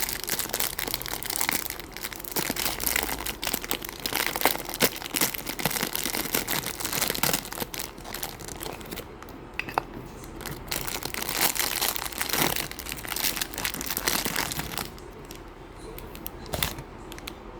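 Plastic packaging crinkling and rustling, with bursts of tearing and small clicks, as a gachapon figure's parts are unwrapped by hand; it quietens to a few clicks near the end.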